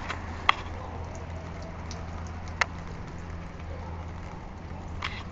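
Tube wind chime knocking a few times: short sharp clicks, the clearest about half a second and two and a half seconds in, over a steady low hum.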